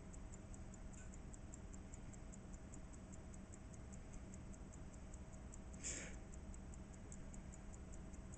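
Quiet room tone: a faint, fast, regular high-pitched ticking, about four ticks a second, over a low steady hum, with one short soft hiss about six seconds in.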